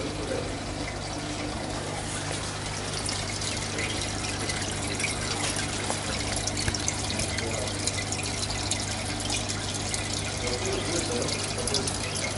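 Aquarium filters and aeration bubbling and trickling over a steady low hum, with a fine crackle of bubbles that grows a little louder after about two seconds.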